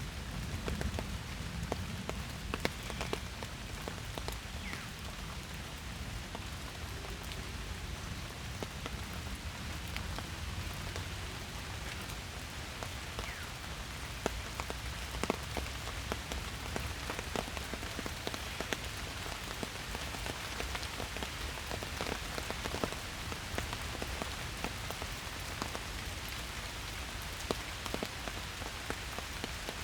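Steady rain falling in a forest, with many individual drops ticking close by over the even hiss of the downpour.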